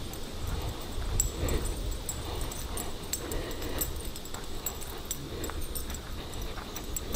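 A puppy's soft sounds over a steady low rumble and scattered light clicks from walking along a grassy trail.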